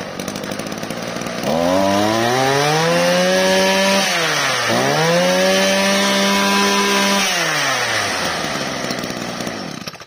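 Maruyama MBC235 two-stroke brush cutter engine (32 mm bore, 23 cc) running. It idles, then revs up to high speed, drops sharply for a moment about halfway through and revs up again, then falls back to idle near the end.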